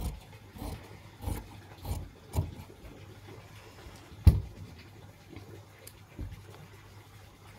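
Large tailor's shears cutting through cotton fabric, a snip about every two-thirds of a second for the first two and a half seconds. About four seconds in comes a single sharp knock, the loudest sound, followed by the rustle of the cut fabric being smoothed and lifted.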